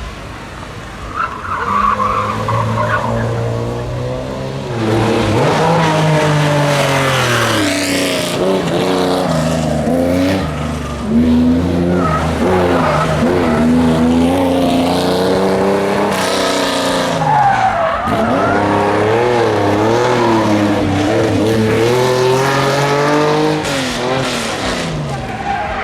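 Classic rally car engine revving hard through the gears, its pitch climbing and dropping again and again as it accelerates, shifts and lifts. A little past halfway the engine drops away briefly, then rises again.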